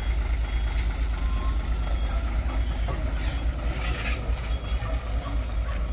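Heavy truck engine running, a steady low drone with road noise.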